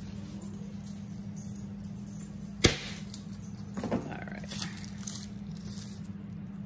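Kitchen knife work over a steady low hum: one sharp knock about two and a half seconds in, then a few lighter knocks and clatter, as a small whole onion is cut up.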